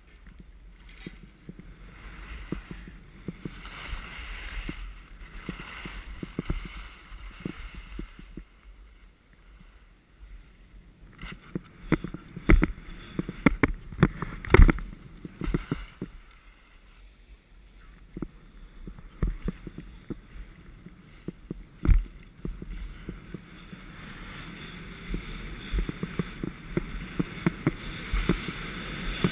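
Skis sliding and scraping over packed snow on a groomed run, a steady rushing hiss broken by scattered sharp knocks that cluster in the middle. The rush grows louder over the last few seconds.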